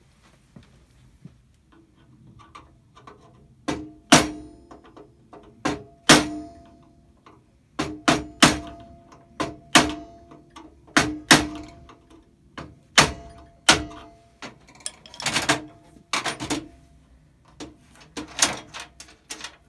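A hammer striking the end of a steel coach bolt, peening it over so the adjustment knob's fitting can't work loose: about fifteen sharp, ringing blows at an uneven pace, starting about four seconds in.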